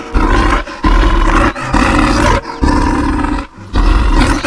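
Bear roar sound effect: about five loud, rough roars in a row, each roughly half a second to a second long, with short breaks between them.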